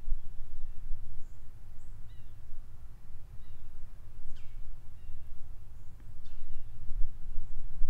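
Outdoor ambience: a low, uneven rumble with a few faint bird chirps scattered through it, two of them quick sweeping calls.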